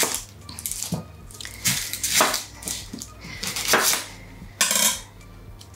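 Kitchen knife cutting a whole onion on a wooden chopping board: several separate crunches and knocks of the blade against the board, at uneven intervals.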